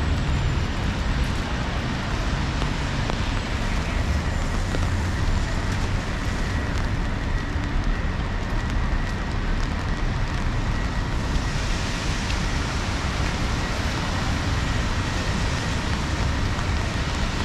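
Rainy city street: a steady hiss of falling rain over a low rumble of passing traffic. The rain hiss eases for several seconds in the middle and picks up again about two-thirds of the way in.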